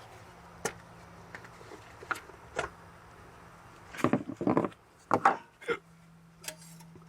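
Plastic clicks and knocks from the lid of an oil drain container being worked off: a few single clicks, then a run of louder rattling knocks about four to six seconds in.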